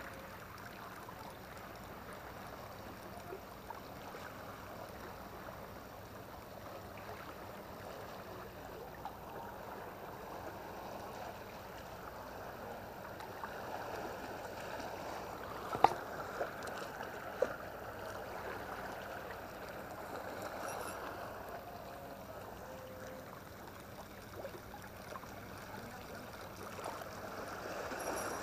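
Seawater lapping and sloshing against the rocks at the shoreline, a steady watery wash. Two sharp clicks come a little past halfway, about a second and a half apart.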